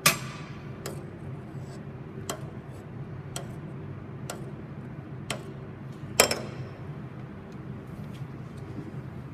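Sharp metallic clicks and knocks, about one a second, from a metal spoon against a stainless steel pot. The loudest come at the start and about six seconds in, each with a short ring, over a steady low hum.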